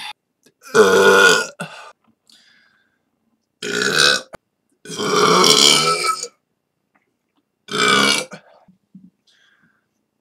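A person belching four separate times, each belch a deep voiced burp lasting about half a second to a second and a half, with short silent gaps between them; the longest comes about five seconds in.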